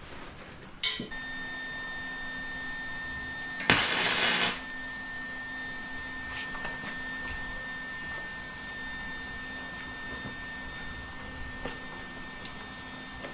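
Arc welding on a square-tube steel frame: a loud crackling hiss lasting under a second about four seconds in, a short weld or tack. It sits over a steady hum that starts after a sharp click about a second in, with faint scattered ticks later on.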